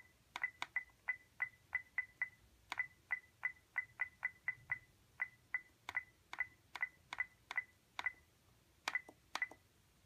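iRobot Roomba 880's control-panel buttons pressed over and over, each press answered by a short high beep with a click, about three a second in runs with a few brief pauses, some two dozen in all: the scheduled start time being stepped through hours and 15-minute increments.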